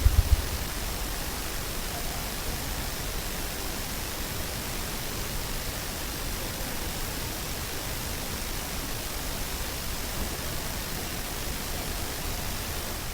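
Steady, even hiss of a night field recording. The low, rapid wing-drumming thumps of a ruffed grouse die away about half a second in.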